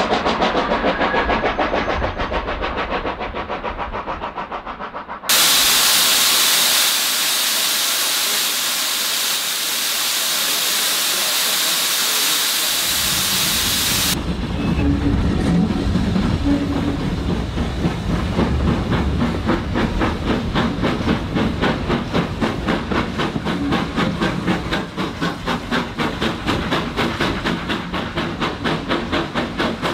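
Steam locomotive at work, plausibly the 1874 Haydock Foundry engine Bellerophon. A train runs with a fading rhythmic beat, then about five seconds in a loud steady hiss of escaping steam starts suddenly and lasts about nine seconds. From about fourteen seconds in, the locomotive's regular exhaust beats are heard from the train as it pulls its load.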